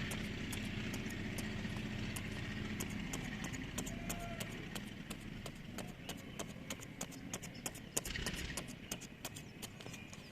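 Engine of an earth-cutting machine running steadily, then fading after about three seconds, while irregular sharp clicks and rattles grow denser toward the end, typical of soil and stones being cut and scraped.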